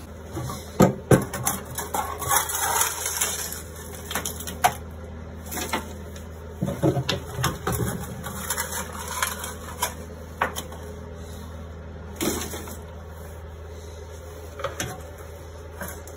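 Scraping and clattering as rusted iron plate, corroded as thin as paper, is scraped and picked off a fibreglass engine bed. The scrapes, knocks and flakes come in irregular bursts, over a steady low hum.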